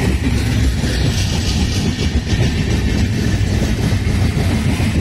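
Indian Railways LHB passenger coaches passing close by at speed: loud, steady wheel-and-rail noise.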